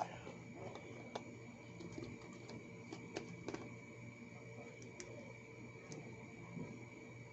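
A handful of faint, sharp clicks and light taps, as of small hard objects being handled, spaced irregularly over a steady electrical hum and a thin high whine.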